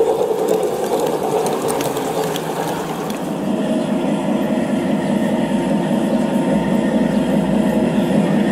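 G-scale model trains running on a garden railway: wheels clicking over the rails as coaches roll past. About three seconds in this changes abruptly to the steady whirring hum of a model class 132 diesel locomotive's motor and gears as it runs along the track.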